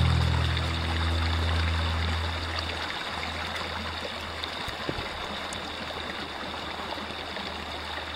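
Small creek flowing steadily, an even rush and trickle of water. Music fades out over the first two or three seconds.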